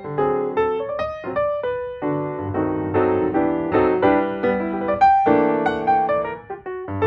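Background instrumental music: a piano tune of quick single notes and chords.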